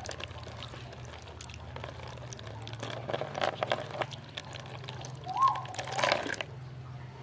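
A thin stream of water poured over small tomatoes being rubbed clean by hand, splashing into a plastic basin. The splashing comes and goes, loudest about three seconds in and again around six seconds.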